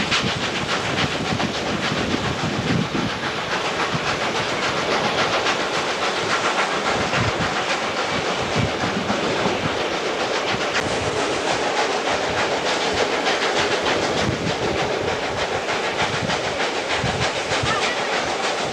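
Steam-hauled passenger train behind ex-South Australian Railways locomotive 520 running along the track, heard from a carriage window: a steady rush of wheel, rail and steam noise, with wind buffeting the microphone.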